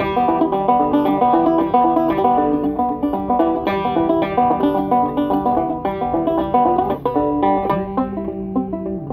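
Zither banjo played solo, picking a quick run of plucked notes and chords as an instrumental passage between sung verses.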